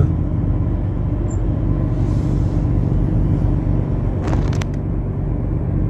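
Steady low rumble of a car heard from inside its cabin while it idles or creeps forward in traffic, with a brief clicking sound about four and a half seconds in.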